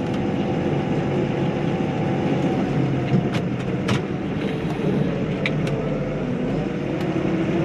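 Tractor's diesel engine running steadily, heard from inside the cab while it pulls a trailer carrying a digger, with two short sharp clicks around the middle.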